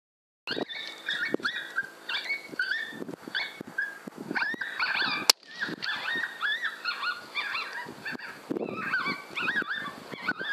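Electronic predator caller playing a coyote pup distress sound: a run of high whines and yips over a faint steady hum. About five seconds in comes a single sharp crack, the rifle shot.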